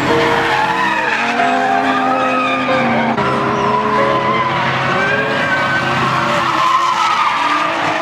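A car sliding with its tyres squealing, heard as many wavering, gliding squeal tones over a steady engine drone.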